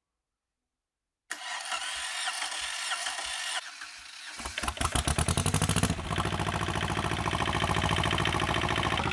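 Volvo Penta 2002 two-cylinder marine diesel turned over on its starter motor from about a second in, firing about three seconds later and picking up into a steady, clunky idle. It catches within a few cranks after the fuel system has been bled.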